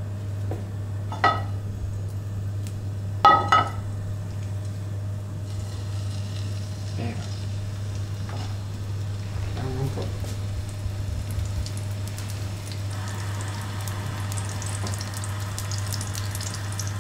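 A rolled, string-tied rabbit saddle searing in hot oil in a frying pan on a gas burner, the sizzle growing stronger toward the end. Two sharp metallic clanks ring out about one and three seconds in, over a steady low hum.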